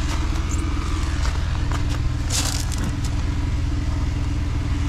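A steady low mechanical drone like a running engine, with a short hiss from a hand spray bottle squirting about two and a half seconds in.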